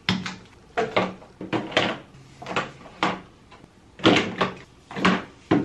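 Plastic bottles and tubes of hair product knocking and clacking as they are set into a clear plastic storage bin and pulled from a bathroom vanity cabinet: a series of short sharp knocks, roughly one or two a second.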